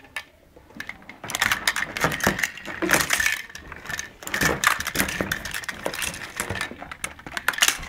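Close, irregular rustling with many light clicks and crackles, beginning about a second in: handling noise of things being moved and rubbed near the microphone.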